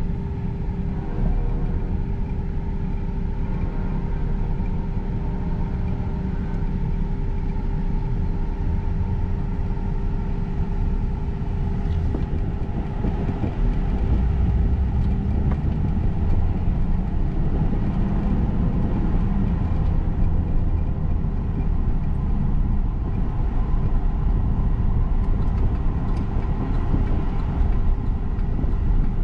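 Car cabin noise while driving: a steady low rumble of engine and tyres with a constant hum, growing a little louder about halfway through.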